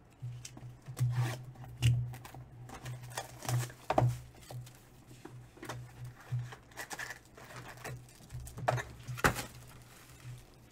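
Cardboard card boxes and a stack of sealed foil trading-card packs being handled on a table: irregular rubbing, scraping and light knocks, with two sharper knocks about four seconds in and near the end.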